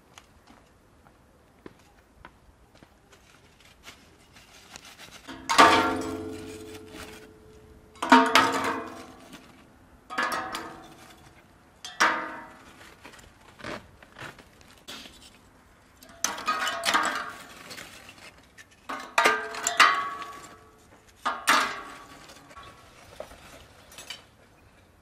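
Lumps of charcoal tipped from a sack into a metal grill firebox in about seven pours a few seconds apart. Each pour is a loud clatter of lumps on sheet metal with a brief metallic ring.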